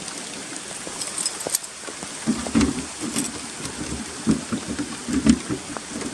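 Rain falling steadily. From about two seconds in it is joined by irregular dull thumps.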